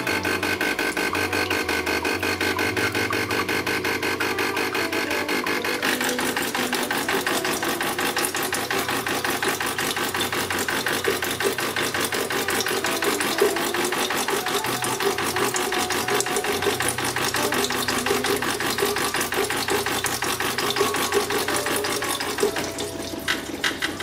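DeLonghi Dedica EC685 espresso machine's vibratory pump buzzing steadily as it drives descaling solution out through the steam/hot-water wand, with the hiss of water and steam at the wand growing louder about six seconds in. The level drops near the end.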